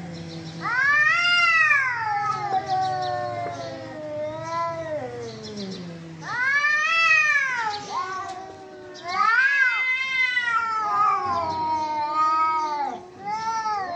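Two cats yowling at each other in a hostile face-off: long, drawn-out howls that waver up and down in pitch. The howls swell loudest about a second in, again around six seconds in, and near ten seconds in.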